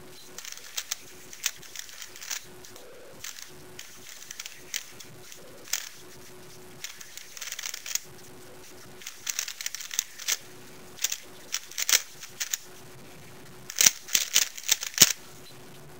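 Plastic clicking and clacking of a stickerless DaYan GuHong 3x3 speedcube being turned rapidly by hand during a timed solve. The turns come in irregular flurries with short pauses between, busiest in the middle and in a last quick burst near the end.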